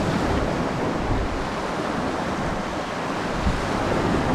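Steady rush of wind buffeting the microphone, with the wash of surf underneath; a low, unsteady rumble and no distinct strokes.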